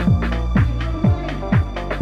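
Electronic dance music with a steady kick drum about twice a second.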